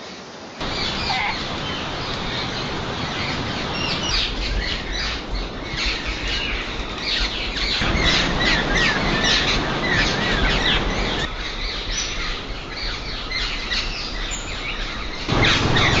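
Forest birds chirping and calling, many short high notes over a steady hiss of forest background. The background changes abruptly every few seconds, as if separate recordings were cut together.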